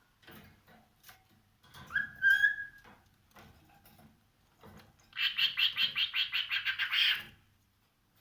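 Cockatiel calling: a short whistled note about two seconds in, then, about five seconds in, a rapid scratchy chatter of roughly nine pulses a second lasting about two seconds.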